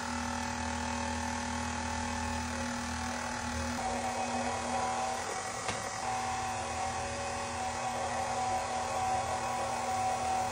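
KitchenAid Artisan stand mixer motor running steadily with a constant whine, driving a pasta roller attachment as a sheet of fresh egg-pasta dough is fed through the rollers.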